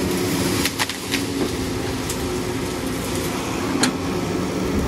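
Cat 312 hydraulic excavator's diesel engine running steadily under working load as the boom and bucket push through brush, with a few sharp knocks about a second in and again near the four-second mark.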